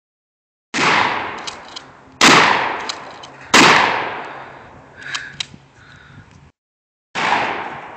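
Four gunshots from a long gun, the first three about a second and a half apart and the fourth after a longer pause. Each one is sudden and loud and trails off slowly over a second or more.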